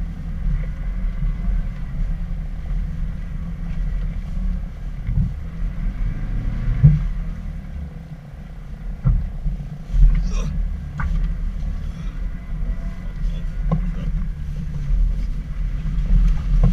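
Suzuki Jimny driving off-road, its engine running with a steady low rumble, broken by several sharp knocks and thumps over rough ground.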